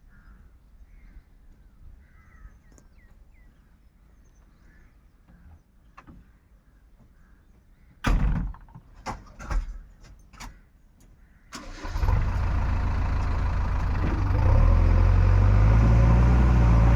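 Several loud knocks, then a heavy diesel engine starts and runs steadily, getting a little louder a couple of seconds after it starts.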